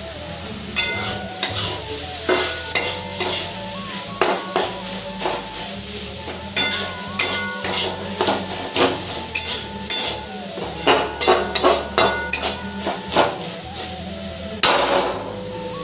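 Sliced onions sizzling as they fry in a metal kadhai, while a metal spoon stirs them, knocking and scraping against the pan about once or twice a second.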